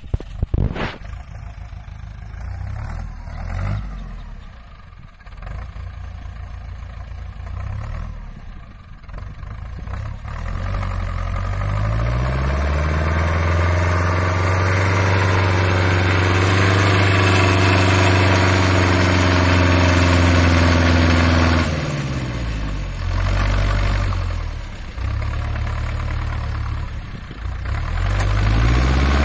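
Homemade tractor's 3.6-litre, 85 hp engine working through deep mud, revving up about ten seconds in and holding high revs, easing off around two-thirds through and picking up again near the end. A sharp knock right at the start.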